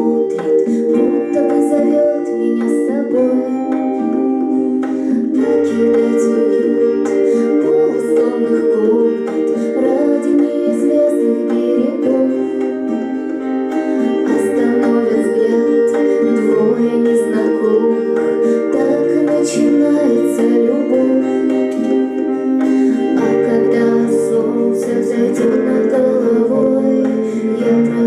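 A live band playing a song: sustained keyboard chords over a bass line that changes every second or two, with plucked guitar and short bright percussion hits.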